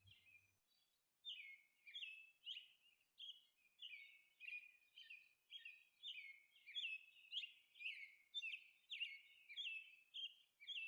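Faint, repeated bird chirps: short, downward-sliding notes about two a second, growing slightly louder in the second half.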